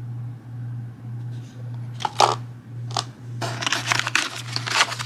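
Foil zip-lock pouches crinkling as they are handled: two short rustles about two and three seconds in, then a denser stretch of crinkling near the end. A low hum pulsing about twice a second runs underneath.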